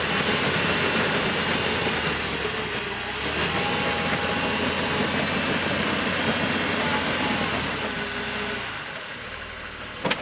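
Off-road Jeep engine running steadily as it crawls a rock obstacle, easing off near the end, with a sharp click just before the end.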